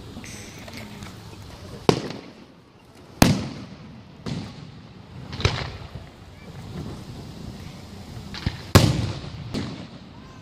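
Aerial fireworks shells bursting overhead: about seven sharp bangs spread over ten seconds, each trailing off in an echoing rumble, the loudest about three seconds in and near the end.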